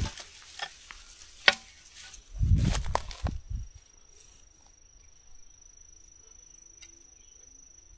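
Steady high-pitched insect chirring throughout. A few sharp clicks come in the first two seconds, and a short scuffing, thudding noise comes about two and a half seconds in.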